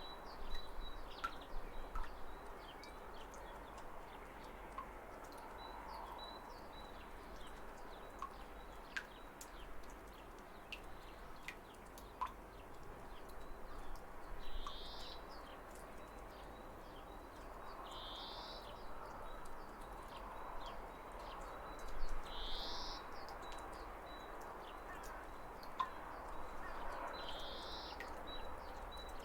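Steady rush of falling water with birds chirping over it: a string of short high chirps, and four louder rising calls spaced about four seconds apart in the second half.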